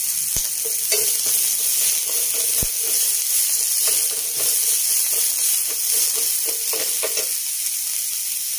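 Sliced onions sizzling in hot oil in a frying pan, with a wooden spatula scraping and stirring them in quick repeated strokes. The stirring stops about a second before the end, leaving the steady sizzle.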